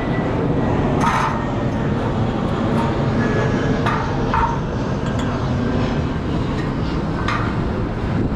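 A steady low rumble with a few short knocks and clinks as a rooftop AC condenser coil is handled and shifted.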